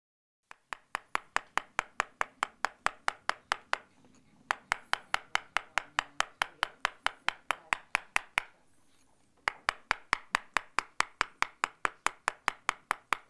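Hammer striking a chisel on stone in a fast, even run of sharp taps, about six a second, stopping briefly twice.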